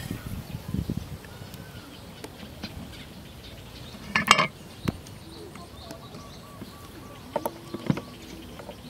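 Outdoor ambience: scattered light knocks and clicks, with one louder short sound about four seconds in and a faint run of quick repeated bird chirps in the second half.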